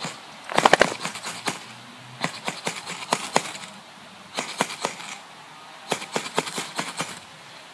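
Ferro rod fire steel scraped hard with a metal striker: about five bursts of quick scraping strikes, the loudest a little over half a second in, throwing sparks onto wood shavings.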